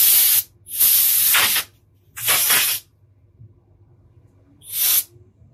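Scent sprayed into the air in four hissing bursts, the second the longest.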